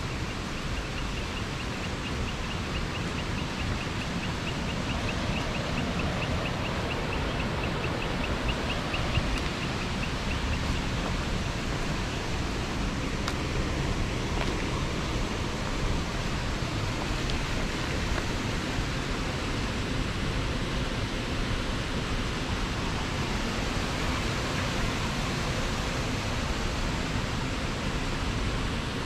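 Steady rushing of river water. Through the first ten seconds or so, a rapid, evenly pulsed high-pitched trill from a calling animal runs over it.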